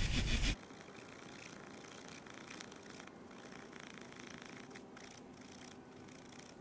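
Pocket-knife saw blade cutting through a dead branch, a faint rasping of repeated back-and-forth strokes. In the first half second there is a loud low rumble of wind on the microphone, which cuts off suddenly.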